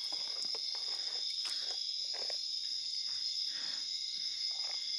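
Steady high-pitched chorus of night insects, crickets trilling together at several pitches, with faint irregular splashing of shallow stream water beneath.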